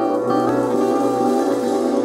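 Instrumental background music with held tones under a moving melody.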